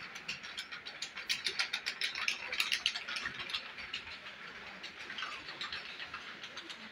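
Rapid, uneven clicking rattle, dense at first and thinning out after about three and a half seconds.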